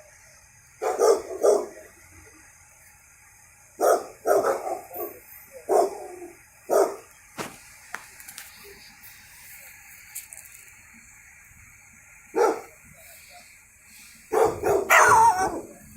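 Dog barking: scattered single barks and pairs with pauses between, then a longer, louder run of barking near the end.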